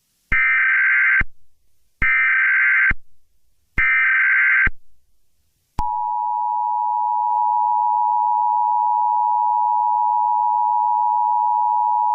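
Emergency Alert System tones: three bursts of electronic data tones, each about a second long and about a second apart, forming the SAME header. About six seconds in, the steady two-tone EAS attention signal starts and holds.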